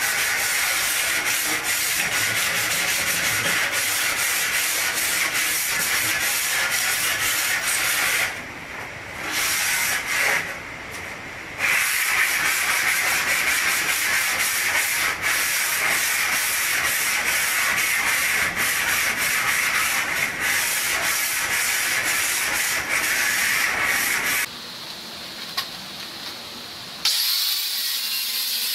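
Sanding on an aluminium rack channel: a steady rasping hiss, broken off twice about eight and ten seconds in and once more for a couple of seconds near the end.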